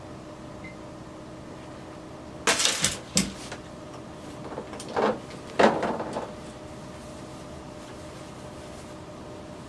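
A few short bursts of rustling and knocking handling noise as a small camera on a tabletop tripod is gripped and moved, over a steady faint hum.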